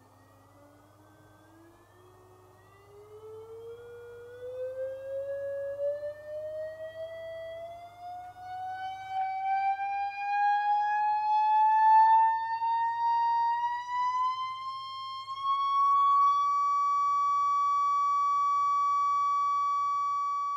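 Test tone from a loudspeaker driven by a function generator, sweeping smoothly up in pitch as the frequency knob is turned, then holding one steady high pitch for the last few seconds. It grows louder as it climbs.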